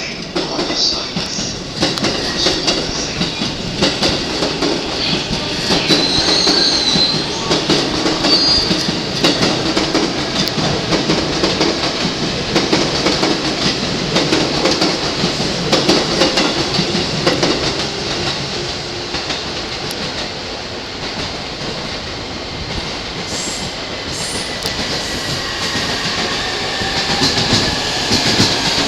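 Electric commuter train running along the track by the platform, its wheels clacking over the rail joints, with brief high wheel squeals about six to eight seconds in and a whine that falls in pitch near the end.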